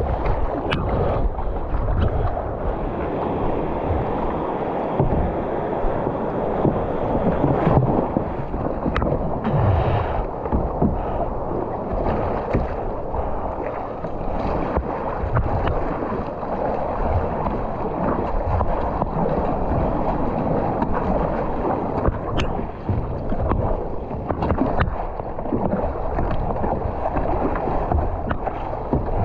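Ocean water splashing and sloshing against a kayak, with wind rumbling on the microphone and a few sharp knocks.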